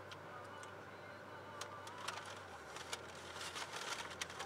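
Low steady hum of a car idling, heard from inside the cabin, with a run of sharp, irregular clicks and crackles that grows denser through the second half.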